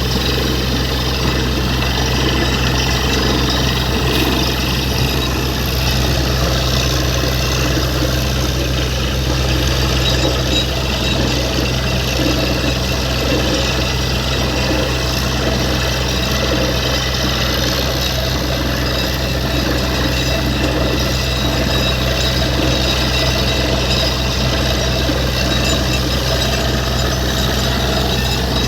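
Borewell drilling rig running at a loud, unchanging level, a heavy engine drone under a rattling, hammer-like noise.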